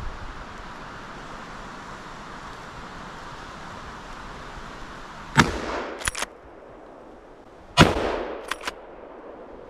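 Two hunting-rifle shots at a moose calf, about two and a half seconds apart, each ringing out with a long echo. Each shot is followed within a second by a quick double click as the rifle's action is worked. The second is a follow-up shot after a good first hit.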